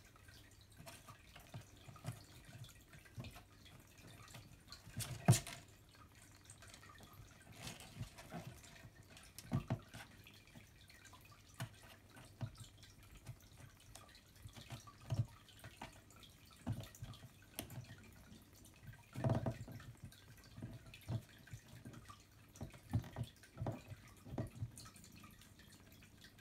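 Siberian kittens suckling from their mother, making quiet, irregular wet clicks and smacks, with a louder bump about five seconds in and another about nineteen seconds in.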